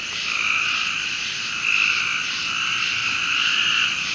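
A chorus of frogs calling continuously, a steady two-pitched call that swells and eases every second or two.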